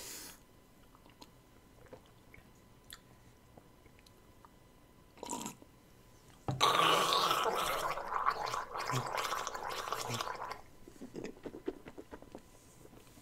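A short sip from a glass, then a mouthful of fizzy energy drink swished around the mouth: a wet gargling sound from about halfway in, lasting about four seconds, then a few small mouth clicks.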